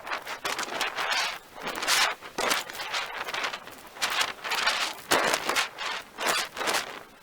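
Hand saw cutting through willow branches: rough rasping strokes, about two a second, unevenly spaced.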